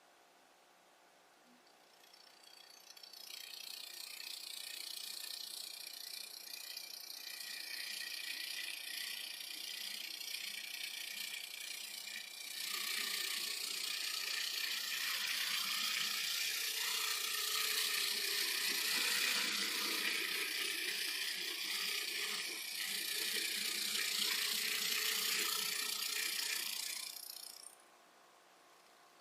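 A small geared electric motor running with a high-pitched whir and gear chatter. It starts about two seconds in, gets louder about halfway through and stops suddenly near the end.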